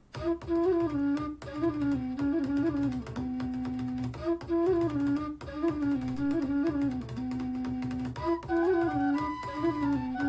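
Test music played through a Bose SoundLink Mini II Bluetooth speaker: an instrumental track, starting just after the opening, with a melody in repeating phrases over a steady bass line.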